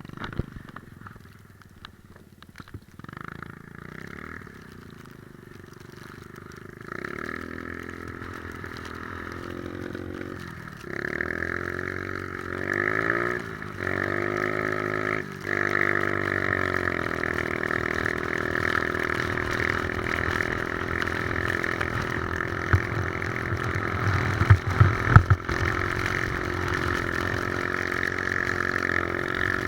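Three-wheeler ATV engine pulling away and accelerating. It revs up and drops back at each of several gear shifts, then runs steadily at speed, with a few low thumps near the end.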